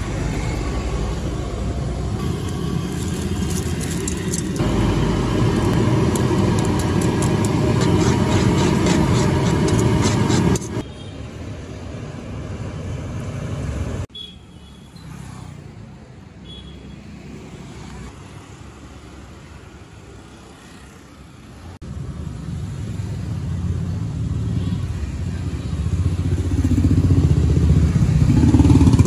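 Roadside street-food stall ambience: a steady rumble with traffic and cooking. It is loud at first, with a run of quick clicks between about five and ten seconds in. It drops suddenly quieter about halfway through, then builds back up to a heavier rumble near the end.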